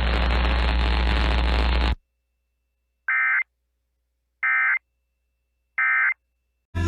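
Three short bursts of EAS end-of-message data tones, the warbling digital code that closes an emergency alert, about 1.3 s apart. Before them a steady hiss with a low hum cuts off about two seconds in, and music starts right at the end.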